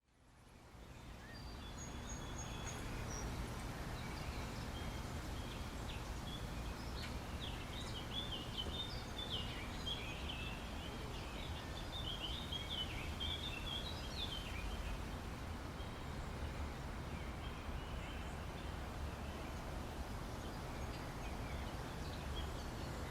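Park ambience that fades in to a steady low rumble, with a bird chirping in quick runs of high notes through the middle stretch.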